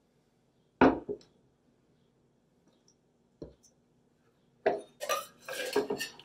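Glass bottles and stainless-steel cocktail shaker tins set down with two sharp knocks. Near the end comes a dense run of clinking and rattling as the shaker tins are handled and fitted together.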